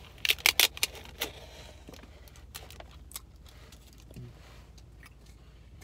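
Crinkling and rustling of a paper fast-food bag being handled, with a burst of sharp crackles about half a second in, then scattered lighter rustles that die away.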